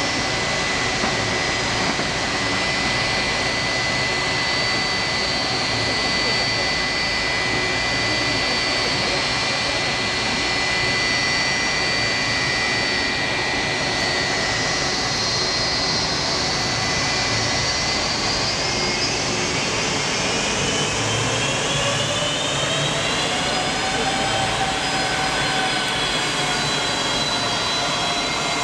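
Boeing 757-200's twin turbofan engines running with a steady whine over a broad rush of noise. About two-thirds of the way through, the whine rises in pitch as the engines spool up to get the airliner moving for taxi.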